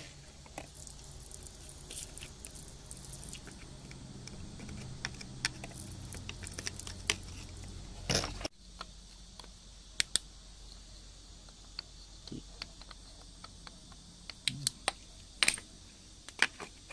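Scattered sharp clicks and taps with some light scraping, like stones and small hand tools being handled, over a low hum. The hum cuts off abruptly about eight and a half seconds in, and the clicks go on.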